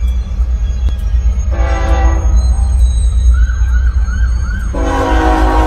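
A diesel locomotive's multi-tone air horn sounds a short blast about a second and a half in, then a long blast starting near the end, over a steady deep rumble in the vehicle cab. A quick run of short chirps comes in between.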